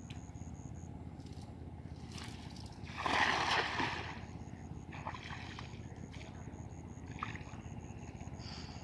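Cast net hitting the water: one spattering splash about three seconds in, lasting about a second, as the spread net lands. A few small splashes follow as the fisherman wades and draws in the hand line, over a steady low rumble.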